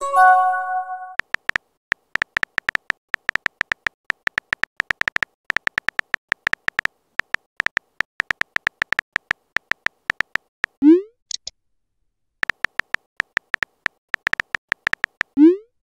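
Phone keyboard typing sounds: rapid clicks in two runs, the sound effects of a chat message being typed out. A short chime of several notes at the start, and a short rising pop, the message-sent sound, about eleven seconds in and again near the end.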